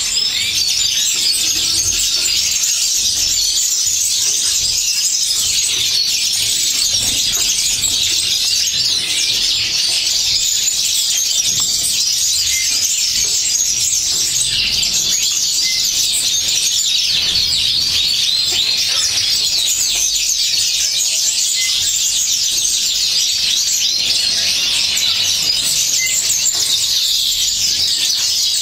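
Many small birds chirping and twittering at once, a dense, unbroken high-pitched chatter with no let-up.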